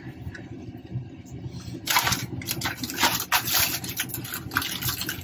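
Irregular rustling and handling noises in a kitchen, starting about two seconds in, over a steady low hum.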